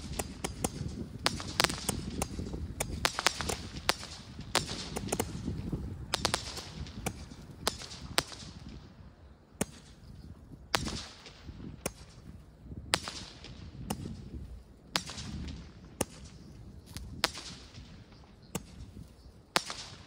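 Consumer fireworks going off: a rapid run of sharp bangs and cracks, each with a short hissing tail, thinning out after about eight seconds to roughly one crack a second.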